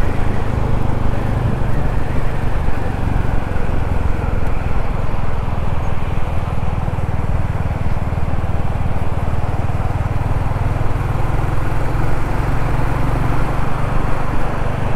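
Royal Enfield Classic 350's single-cylinder engine running steadily at cruising speed, heard from the rider's seat along with wind and road noise.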